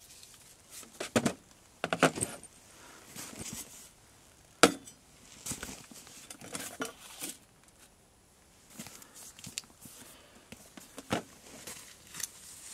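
Camp gear being set down on a folding aluminium camp table: a portable speaker, a cast-iron teapot and a metal mug knocking and clinking onto the tabletop, the sharpest knock about four and a half seconds in, with light handling rustle between the knocks.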